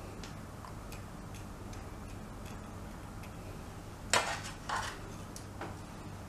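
Quiet steady low hum with faint scattered ticks. About four seconds in come two short clinks close together, then a lighter one, as the rice-flour dough is handled on a stainless steel plate.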